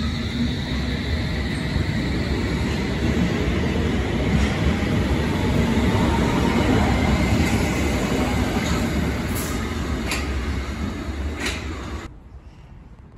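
London Underground S Stock electric train pulling away along the platform, its motors whining and wheels running over the rails, loudest as the rear car passes. A few sharp wheel clicks come near the end before the sound cuts off abruptly to much quieter background.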